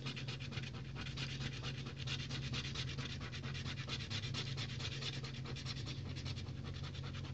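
A coin scratching the coating off an instant lottery scratch-off ticket in rapid, continuous back-and-forth strokes.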